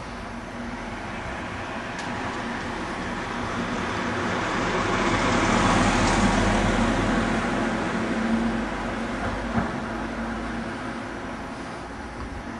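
Road traffic: a motor vehicle passing, its engine and tyre noise swelling to a peak about six seconds in and then fading away.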